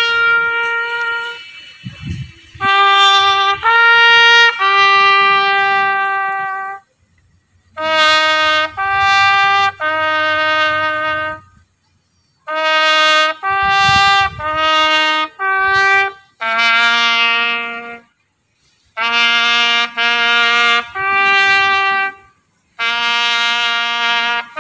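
Solo trumpet playing a slow military funeral bugle call. It comes in phrases of three or four notes, the last note of each held longer, with short pauses between the phrases.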